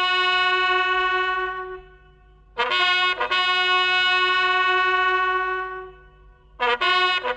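Brass fanfare, a trumpet playing long held notes. One long note fades out, a second starts after a short pause and is held for about three seconds, and a few short notes come near the end.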